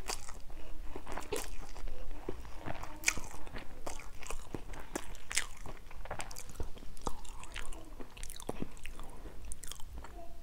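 A person chewing and slurping a mouthful of stir-fried instant noodles with seafood. There are irregular short mouth clicks and smacks.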